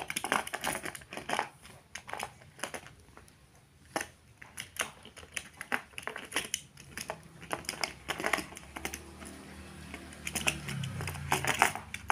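Small die-cast toy cars clicking and clacking against a hard plastic compartment case as they are set into its slots: a string of light, irregular clicks and taps.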